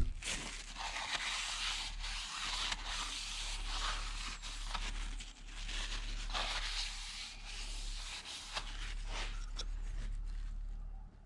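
A cloth rubbing over the cylinder wall of a BMW N52 engine block in repeated wiping strokes, with a few light knocks. The wiping checks whether a mark in the bore is only oil.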